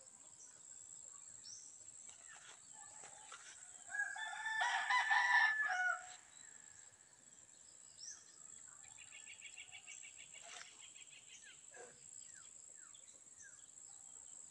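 A rooster crows once, about four seconds in, a call of about two seconds and the loudest sound here. Under it runs a steady high-pitched whine, with a fast trill near the middle and scattered short bird chirps toward the end.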